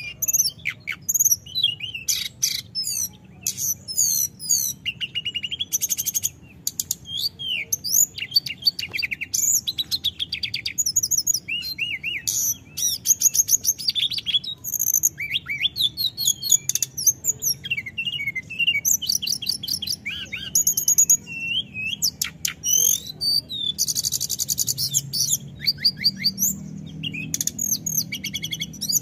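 Hill blue flycatcher singing a long, fast, varied song of high trills and sweeping whistled notes with hardly a pause, in full non-stop song.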